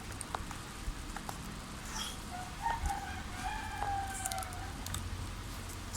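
A rooster crowing once, a long held call about three seconds in that drops at the end, with scattered small clicks and taps.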